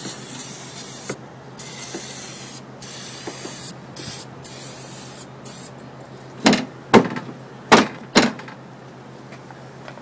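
Aerosol spray can hissing in a run of bursts with short breaks as a protective coating is misted over an air conditioner's circuit boards. About six and a half seconds in come four sharp knocks as the unit's sheet-metal cover plate is lowered shut.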